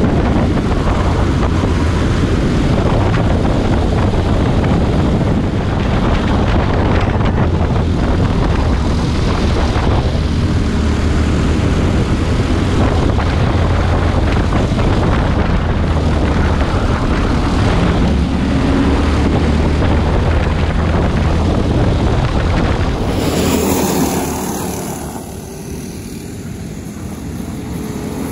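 Briggs & Stratton LO206 single-cylinder four-stroke kart engine running at racing speed, heard onboard with wind rushing over the microphone, its pitch rising and falling as the kart accelerates and lifts through corners. About five seconds before the end it switches to quieter trackside sound of karts running on the circuit.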